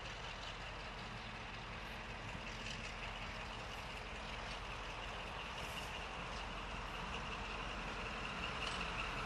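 Class 35 Hymek diesel-hydraulic locomotive approaching slowly, its Maybach V16 diesel engine running steadily and growing gradually louder as it nears.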